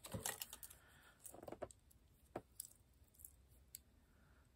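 Faint, scattered clicks and light rustles from handling thin metal cutting dies, cutting plates and cut paper pieces.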